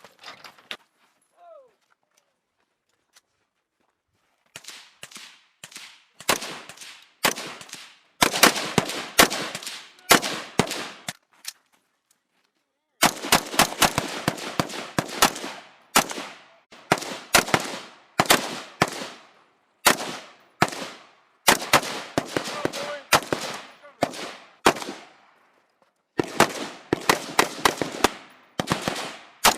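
Live-fire volley from a squad's rifles and automatic weapons, starting about four seconds in: overlapping bursts and single shots with a brief pause near the middle, then firing again.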